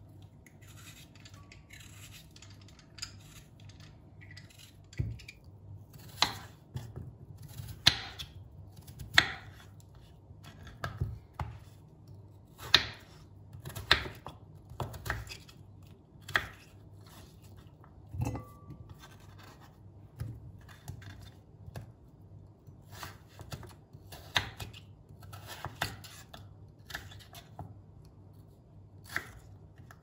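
Kitchen knife slicing raw potatoes on a wooden cutting board: irregular sharp knocks, about one a second, as the blade cuts through and strikes the board. Softer scratching in the first few seconds.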